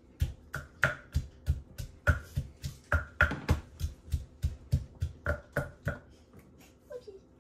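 Wooden pestle pounding in a clay mortar, a steady beat of about three strokes a second, each a dull thud with a sharp knock on top. The pounding stops about six seconds in.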